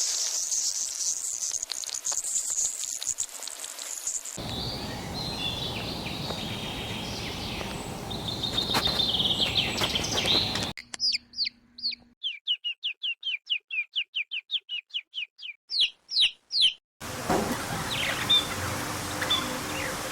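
Birds calling across several spliced recordings: first a high steady hiss, then chirping over background noise, then, starting about eleven seconds in, a clean run of short downward-sweeping chirps at about four a second that stops abruptly, then more chirps over ambience.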